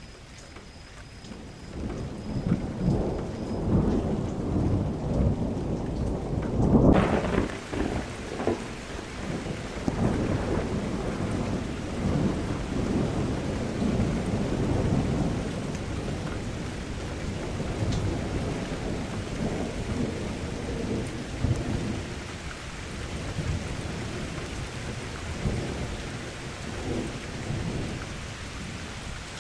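Thunder rolling in a long, deep rumble that builds about a second in and peaks in a loud crack about a quarter of the way through. At that moment a steady hiss of heavy rain starts suddenly and carries on, while the thunder keeps rumbling more faintly.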